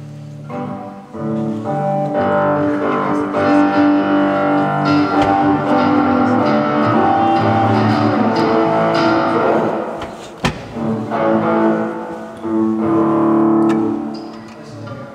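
Live band music: amplified guitar and bass playing held chords that change every second or so, with a sharp knock about ten seconds in.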